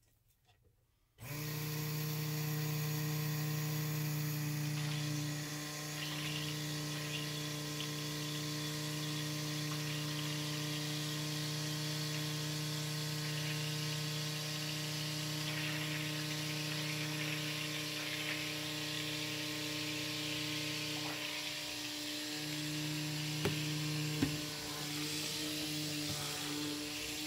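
Cuisinart hand-held stick blender switching on about a second in and running steadily, its motor humming as the blade churns a bowl of used cooking oil while lye water is poured in for cold-process soap. The low hum drops briefly about three-quarters of the way through, then comes back.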